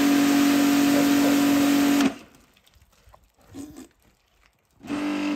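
A small electric motor running with a steady hum, switching off about two seconds in and starting again briefly near the end.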